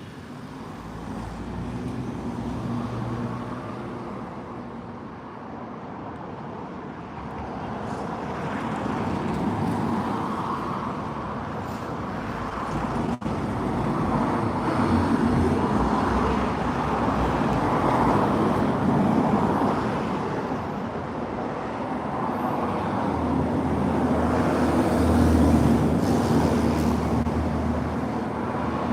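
Road traffic: cars passing one after another, the engine and tyre noise swelling and fading with each vehicle.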